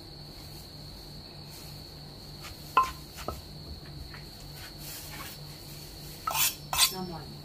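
Steady high-pitched insect trill, with a few sharp knocks; two louder clattering knocks come near the end.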